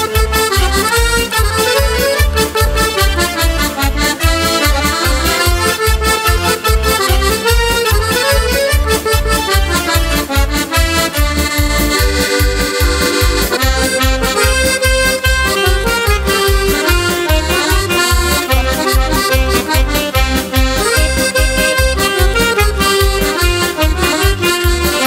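Instrumental break in a Slovak folk-song medley: accordion playing a lively melody over a steady bass beat.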